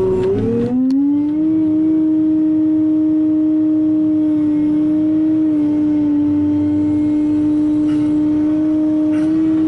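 Excavator running with a loud, steady whining drone. About half a second in its pitch drops sharply, then it settles at a steady, slightly lower pitch.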